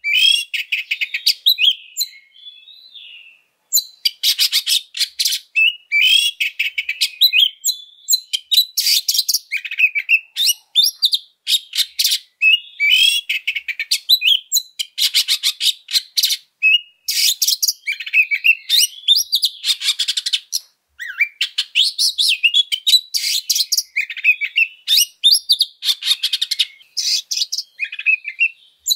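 Oriental magpie-robin singing a fast, varied, combative song: harsh rattling, scratchy runs alternate with sharp whistled notes that slide up and down. The song almost never pauses, apart from a brief quieter spell a couple of seconds in.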